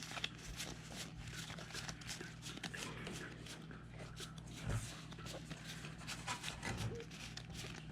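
A stack of Pokémon trading cards being flipped through one by one by hand: light, irregular card-on-card flicks and slides, over a faint steady low hum.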